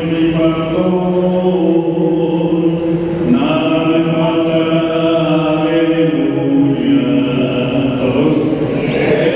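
Slow church chant: singing in long held notes that shift pitch every few seconds.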